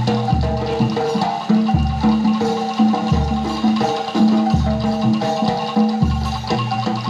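Jaranan gamelan music: metal mallet instruments play a repeating melodic pattern over a deep stroke that comes about every one and a half seconds.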